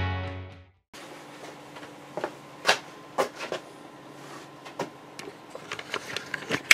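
Rock music with guitar fading out, a moment of silence, then quiet room tone with scattered light clicks and knocks.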